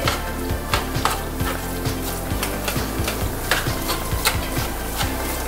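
A metal spoon stirring and scraping corned beef around a nonstick frying pan, with irregular scrapes and clinks about twice a second over a steady sizzle of the meat frying.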